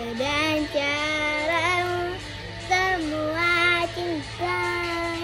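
A young girl singing a slow tune in long held notes with a wavering pitch, a few phrases with short breaks between them.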